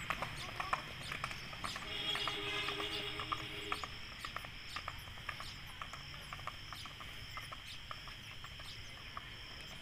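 Horse's hooves clip-clopping on a paved lane, growing fainter as the horse moves away, over steady insect chirring. Between about two and four seconds in, a brief pitched tone sounds.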